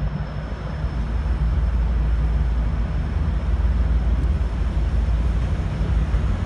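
V/Line N class diesel locomotive's EMD V12 two-stroke engine running with a deep, steady rumble that grows a little louder about a second in.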